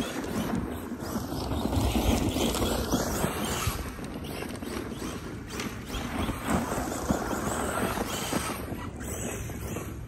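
ARRMA Big Rock 6S brushless electric RC monster truck drifting on loose dirt: a steady rough noise of spinning tyres and sprayed dirt, with scattered clicks and crunches.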